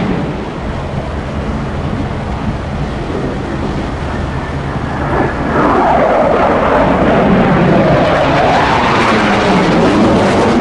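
F-16C fighter jet engine noise, a loud steady rush that swells about five and a half seconds in, with a sweeping whoosh that falls and then rises in pitch as the jet moves past.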